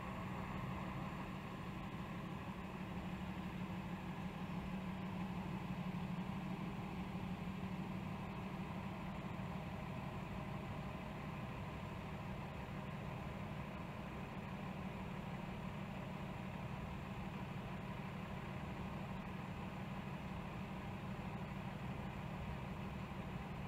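Box truck engine running as the truck pulls slowly away: a steady low drone that eases off somewhat after the first ten seconds, muffled through a closed window.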